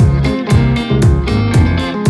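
Background music with a steady beat, about two strong beats a second.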